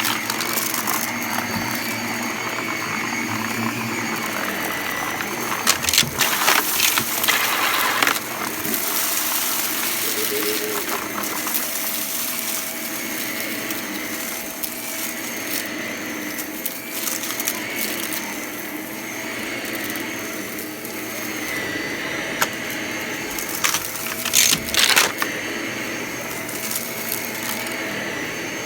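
Vacuum cleaner running steadily with a constant motor whine, sucking up crunchy debris that rattles and crackles through it in bursts, loudest about six to eight seconds in and again near the end.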